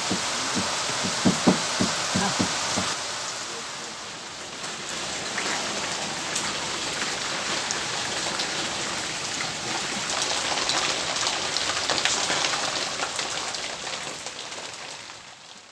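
Steady heavy rain falling on the ground and plants, with hens clucking in short low calls during the first three seconds.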